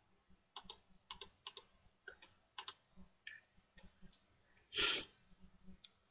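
Faint, scattered clicking of computer keys, a dozen or so light irregular taps. There is one louder short hiss of breath about five seconds in.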